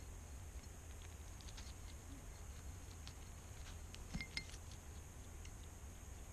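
European hedgehog eating from a dish: scattered small clicks and crunches of chewing, with a brief louder cluster about four seconds in.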